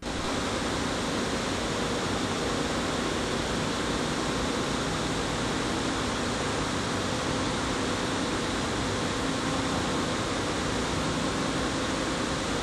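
Steady rushing noise with a faint hum of a few steady tones underneath, unchanging and without any knocks or sudden sounds.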